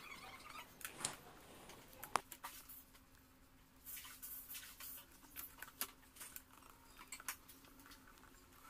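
Faint desk handling: a pen scratching on paper on a clipboard and a plastic ruler being laid and shifted on the sheet. The result is a string of light clicks and taps, the sharpest about two seconds in.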